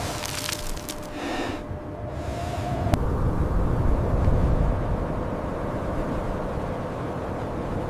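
Strong wind rumbling steadily, with brief hissing gusts in the first second and a half and a single click about three seconds in.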